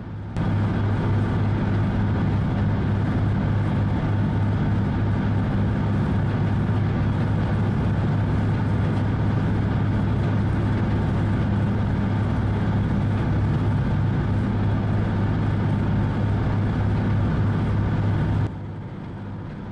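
High-speed passenger boat under way: its engines drone with a steady low hum over the rush of water and wake. The sound cuts in abruptly just after the start and cuts off abruptly about a second before the end.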